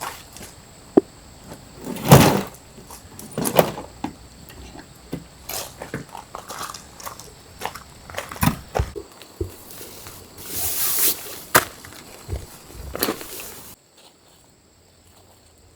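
Irregular knocks, clicks and rustles of things being handled and set down, the loudest knock about two seconds in, dropping away near the end.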